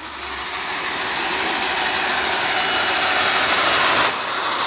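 Cordless drill driving a QuickCut greens harvester, whirring steadily as its blade cuts lettuce and its spinning rope reel sweeps the leaves in, growing louder over the first few seconds.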